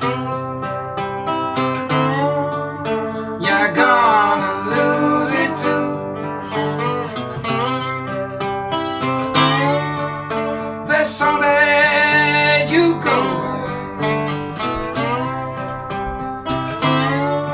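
Instrumental guitar passage in a live country-folk song, the guitar picked with notes that glide in pitch here and there.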